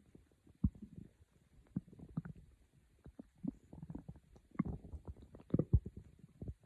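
A person's stomach growling: a run of low, irregular gurgles and rumbles broken by short sharp pops, the strongest of them near the end.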